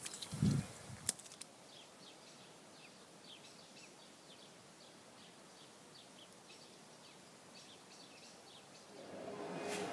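Faint short high chirps of a small bird, repeating irregularly over a quiet outdoor background. A brief low thump on the microphone comes about half a second in, and music fades in near the end.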